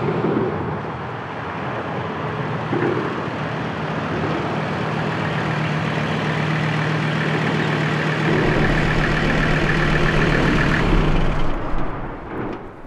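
Diesel-swapped Jeep Cherokee XJ's turbo diesel engine running steadily as the Jeep drives slowly up and comes to a stop, with a deep rumble added about two-thirds of the way in. The engine sound falls away near the end.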